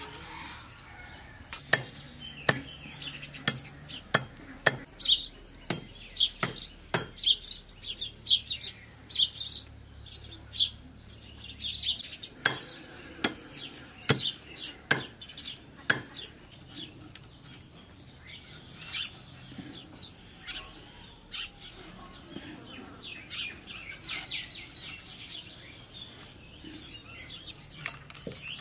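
Large knife chopping raw duck meat on a wooden log: irregular sharp knocks as the blade cuts through into the wood, with birds chirping in the background.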